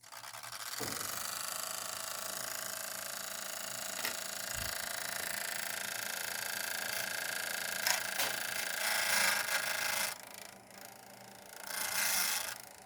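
Desktop PC on an open test bench powering up, its fans spinning up and running with a steady whir. A few clicks and louder rustling swells come near the end.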